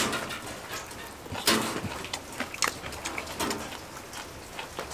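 Eating sounds from a mouthful of spicy braised monkfish and bean sprouts: a short, loud slurp about a second and a half in, then chewing with scattered light clicks.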